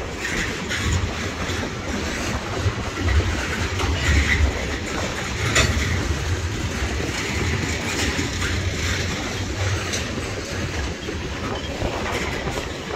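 Freight train of tank cars rolling past, a steady rumble with the wheels clicking now and then over rail joints.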